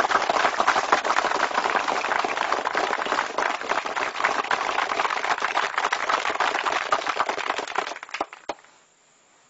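Audience applauding: a dense patter of many hands clapping that thins out to a few last claps about eight and a half seconds in.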